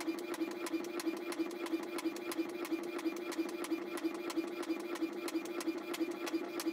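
Epson L210 inkjet printer printing a page: a steady motor hum with regular sharp clicks, about five a second, as the paper steps through.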